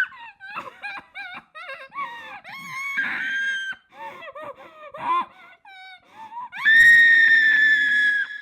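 A person screaming: short, wavering cries and whimpers, then one long, loud, high scream near the end that rings out briefly afterwards.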